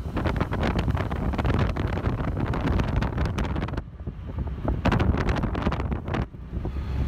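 Wind buffeting the microphone from a moving vehicle, over the vehicle's low running rumble; the buffeting eases briefly about four seconds in.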